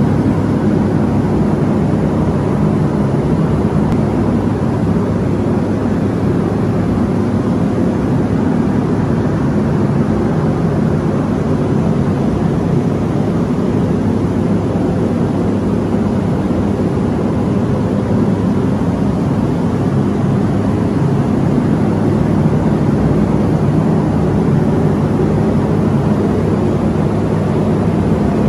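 Spray booth ventilation fan running, a steady, loud rushing drone with most of its weight low down that does not change.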